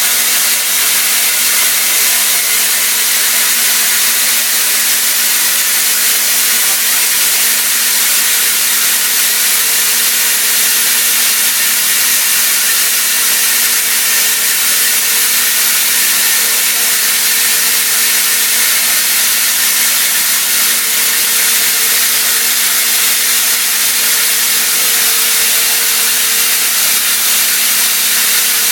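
Haas CNC mill cutting silicon-carbide-reinforced aluminium with a CVD diamond end mill under coolant: a steady, loud hiss of coolant spray and cutting, with a steady hum from the spindle beneath it.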